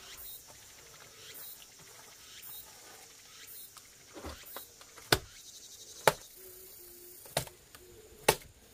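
Handfuls of wet clay mortar slapped and pressed onto a clay oven dome: four sharp slaps over the second half, with insects chirring steadily in the background.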